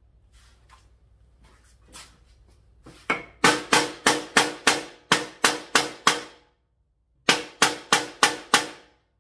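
Hammer blows on the spine of a hardened, tempered steel knife blade, driving it point-first into 3/4 inch plywood for a temper test. Light taps at first, then a rapid run of about a dozen hard blows, about four a second, each with a short ring. After a brief pause comes a second run of about six.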